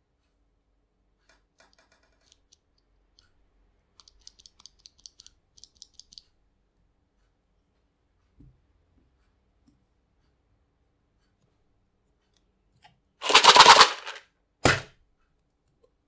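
Hands handling a loose mechanical keyboard switch or keycap. There is a quick run of about a dozen light plastic clicks, and later a loud rustling burst lasting about half a second, followed a second later by a shorter one.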